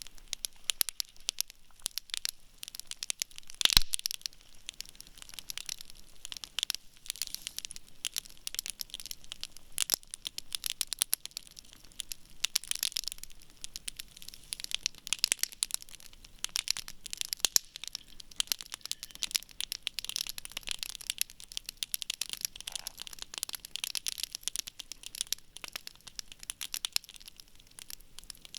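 Wood campfire crackling and popping steadily, a dense run of sharp snaps, with one louder crack about four seconds in.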